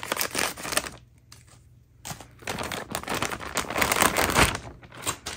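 Clear plastic packaging bag crinkling and crackling as it is snipped with scissors and the plush toy inside is worked out of it, with a short lull about a second in.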